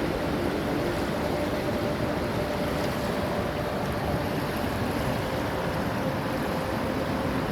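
Steady rush of fast-flowing water, a river or waterfall, an even unbroken noise.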